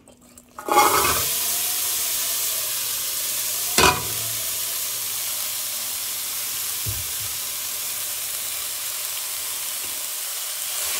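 Chopped bacon, onion and jalapeño drop into a hot pot under a second in and start sizzling, then keep frying with a steady hiss. A single sharp clink comes about four seconds in.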